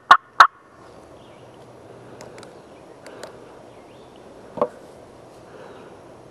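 Turkey yelps: a fast run of loud, evenly spaced notes, about three a second, that stops half a second in. Then quiet pine woods with faint songbird notes and one short knock a little past the middle.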